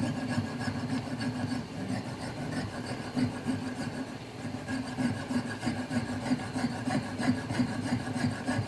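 Piercing saw cutting into a brass clock wheel with quick, even back-and-forth strokes of a fine blade.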